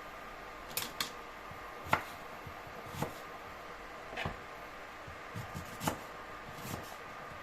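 Irregular knocks and clicks of ginger and kitchen utensils being handled and set down on a work surface, the sharpest about two seconds in and a quick run of them near the end.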